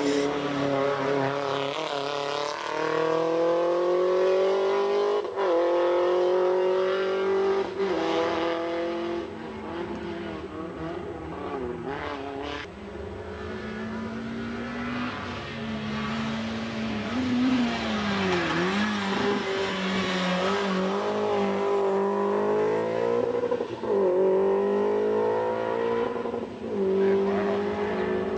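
Group A competition car engines at high revs climbing the hill. The pitch rises through each gear and drops at every upshift. One car's sound fades away and a second car comes up and does the same.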